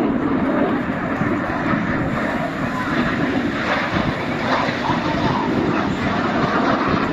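Jet engines of Red Arrows BAE Hawk T1 aircraft, a steady rumble, with wind on the microphone.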